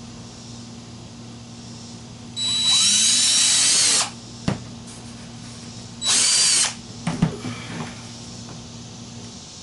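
DeWalt cordless drill with a 7/32-inch bit boring into the plastic top of a cooler lid, its motor running with a high whine in two bursts: a longer one of about a second and a half starting about two and a half seconds in, and a shorter one about six seconds in. A few light clicks and knocks follow as the drill is moved to the next hole.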